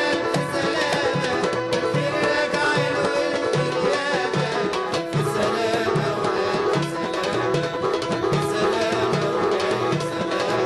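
Egyptian folk music played by a hand-drum ensemble of darbukas and frame drums, with a steady beat of about two strokes a second under a wavering melody.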